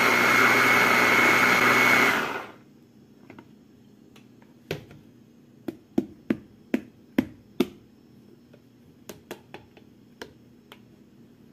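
Small electric kitchen food processor running with a steady whine, then switching off about two seconds in. A run of light clicks and knocks follows, a couple a second.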